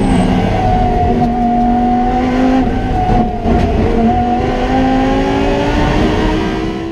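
Lamborghini Huracán Super Trofeo's naturally aspirated V10, heard from inside the race car's cockpit, running hard at fairly steady revs on track. There is a brief break in the note about three seconds in, then it pulls again.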